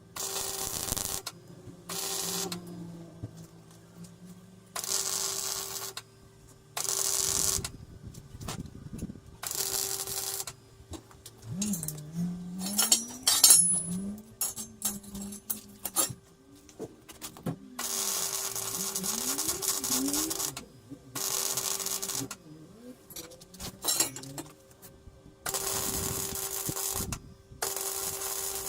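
Electric arc welding on steel box section: about ten short bursts of crackling, each from half a second to a couple of seconds long, with pauses between them as the welds are laid one at a time.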